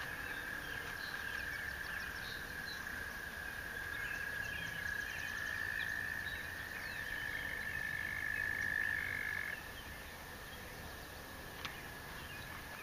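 Frogs trilling in a steady chorus of long, high trills. A second, higher trill joins partway through, and the chorus drops a little in level about three quarters of the way in.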